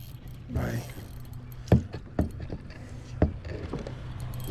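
Three sharp knocks and bumps against a kayak while a fish is being fought from it, over a steady low rumble.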